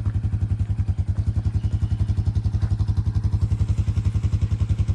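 A small engine running steadily at an even idle, with a low hum and a fast, regular pulse.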